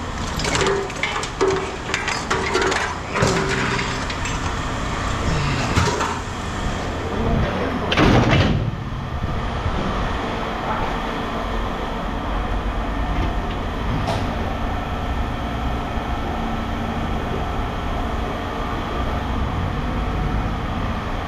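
Scrap metal clanking and knocking as it is handled, with one loud crash about eight seconds in. After that, a steady engine runs.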